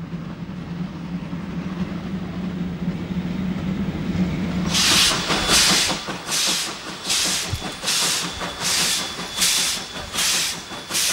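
A steady low hum over a noise haze, then, about five seconds in, a Belgian type 29 steam locomotive's exhaust beats set in: sharp hissing chuffs from the chimney, about one and a half a second, as the engine works slowly along the track.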